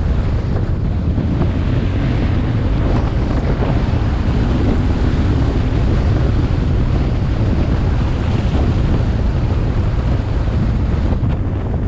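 Heavy, steady wind noise buffeting the microphone of a helmet-top action camera at riding speed, with the BMW R1150R's boxer-twin engine faintly beneath it.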